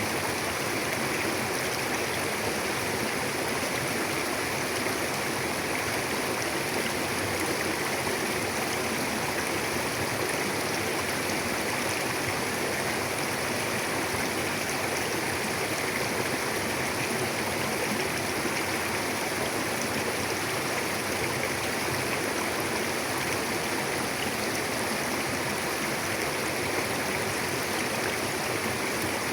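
Mountain river flowing, a steady rushing of water with no breaks or single splashes.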